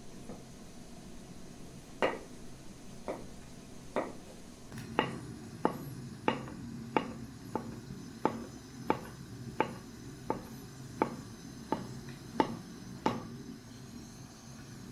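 Kitchen knife slicing button mushrooms on a wooden cutting board: a steady run of about sixteen knocks of the blade on the board, roughly one every two-thirds of a second, starting about two seconds in and stopping near the end.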